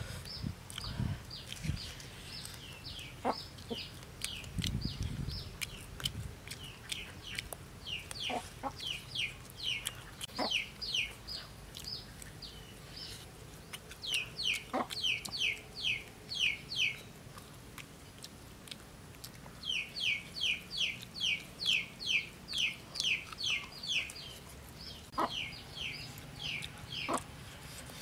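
Chickens calling in runs of short, high, falling notes, several a second, that come and go in bursts of a few seconds, with a few sharp clicks in between.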